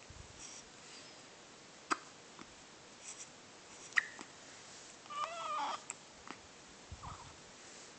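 A baby hiccuping: a few short, sharp hiccups, the clearest about two seconds apart, and a brief high, wavering squeak from the baby a little after five seconds in.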